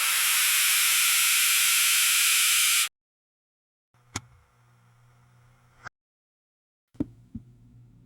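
Synthesized on-screen comment pop-up sound effects. A loud rush of hissing noise cuts off suddenly about three seconds in. After a short silence come two quieter effects, each a sharp click followed by a faint low hum, the second starting near the end.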